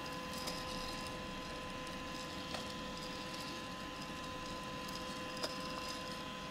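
Steady faint electrical hum with two even tones, with a few soft clicks scattered through it.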